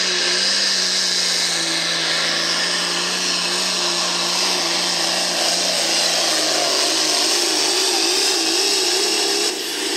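Turbocharged International farm tractor's diesel engine running flat out while pulling a weight-transfer sled, its pitch sagging slowly as the load builds. There is a brief drop in level near the end.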